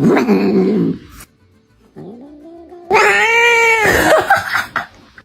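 Domestic cat yowling loudly: a short harsh cry at the start, then a long, drawn-out meow about three seconds in.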